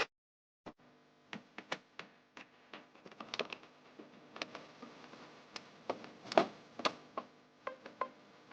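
Irregular light clicks and taps of hands working with tools and plastic parts, about a dozen sharp ticks scattered across the stretch, with a louder knock near the middle.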